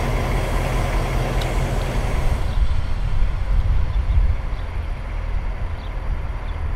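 Diesel engine of SNCF locomotive BB 67621 running steadily with a low throb. About two and a half seconds in, the high hiss drops away and the engine sounds more distant.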